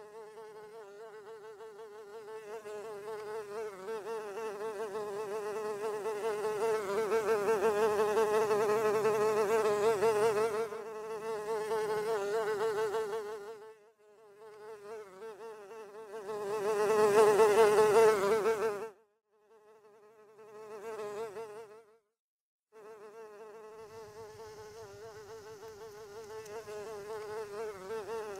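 Honey bee wing buzz, a steady hum that wavers in pitch as the bee hovers and flies around a maize tassel while gathering pollen. It swells louder twice as the bee comes close and cuts off abruptly a few times.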